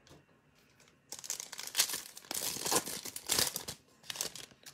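The foil wrapper of a Topps Chrome baseball card pack being torn open and crinkled by hand. The crackling rustle starts about a second in and runs on in quick bursts until near the end.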